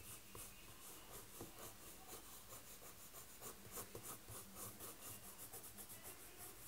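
Faint scratching of a green colored pencil shading on drawing paper in quick, even back-and-forth strokes.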